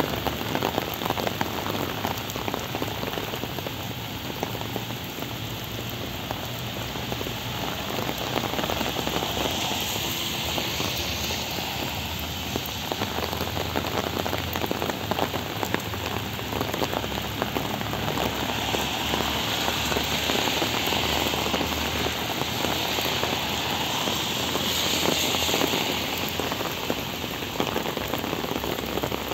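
Heavy rain pouring down onto wet pavement and puddles: a steady, dense hiss of countless drops that swells slightly now and then.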